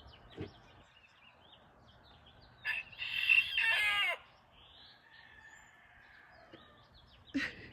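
An agitated rooster crowing once, about three seconds in: a short first note, then a long drawn-out call that falls in pitch at the end. Faint small-bird chirps are in the background, and there is a brief sharp sound near the end.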